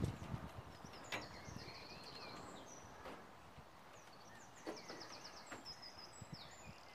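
Small songbirds singing faintly: runs of quick, high repeated notes, one spell in the first half and another in the second, with a few soft clicks.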